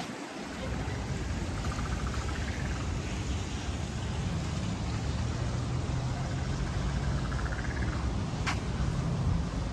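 Traffic noise with a vehicle engine running, a steady low hum, and one sharp click about eight and a half seconds in.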